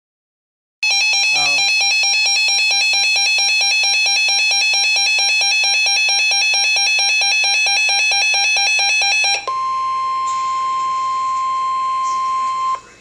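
Weather radio receiver's electronic alarm beeping in a rapid, shrill pulse for about eight seconds. It then gives way to the NOAA Weather Radio 1050 Hz warning alarm tone, a single steady tone held for about three seconds that cuts off sharply, signalling an emergency alert broadcast (a flash flood warning).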